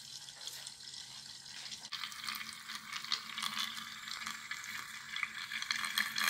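Tornado machine toy running: water swirling in its clear cone with a steady fizzing hiss over a faint low hum, a little louder after about two seconds.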